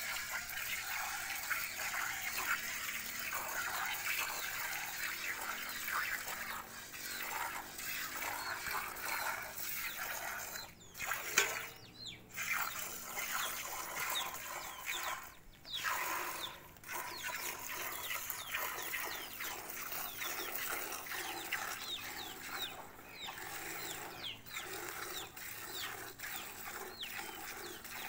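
Milk squirting from a cow's teats into a steel bucket during hand milking: a steady run of short spurts, broken by brief pauses a few times.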